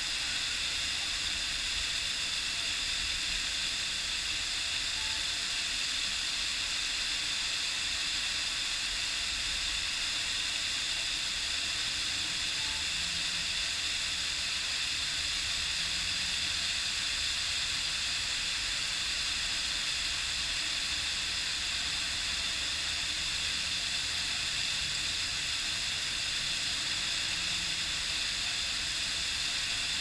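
Water pouring in thin streams down a fountain wall and splashing onto the pavement: a steady, even hiss.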